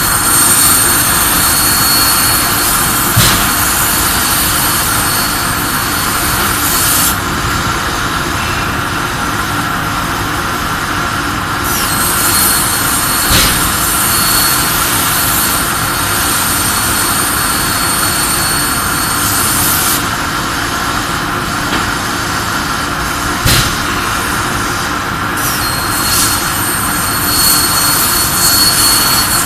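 CNC plasma cutter: the plasma torch's arc runs with a loud, jet-like hiss and a high whistle for cuts of about eight seconds each, three times, with gaps between them. A steady machine hum and rumble runs underneath, with a single sharp click about every ten seconds.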